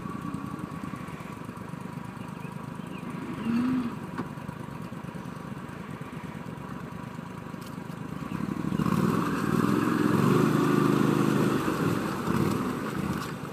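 Engine of an ARGO amphibious ATV running steadily, then about nine seconds in it picks up and runs louder for several seconds.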